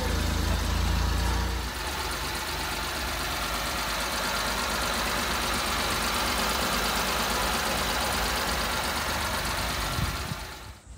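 1995 Suzuki Carry DD51T's small three-cylinder engine idling steadily. It is louder and deeper for the first second or two, heard from under the truck, then steady as heard at the open engine bay.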